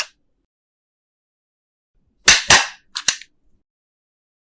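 Stapler being pressed: two sharp snaps close together about two seconds in, followed by two lighter clicks, with a brief click at the very start and silence between.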